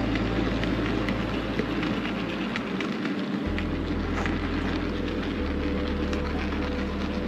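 Model railway milk tank wagons and a brake van rolling past on the track, a steady crackling rattle made of many small clicks as the wheels run over the rails and rail joints.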